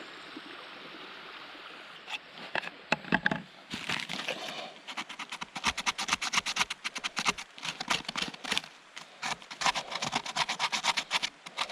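Steady rushing of a stream, then from about two seconds in a quick, irregular run of crunching, scraping clicks over it.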